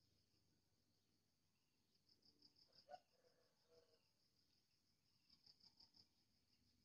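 Faint insect chirping: two short trains of quick high-pitched pulses, with a single faint click about three seconds in.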